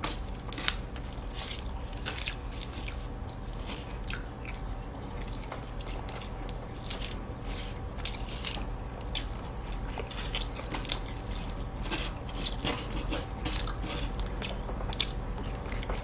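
Close-miked crunching and chewing of crisp, flaky butterfly-pie (palmier) pastry crumbs, a string of small irregular crackles.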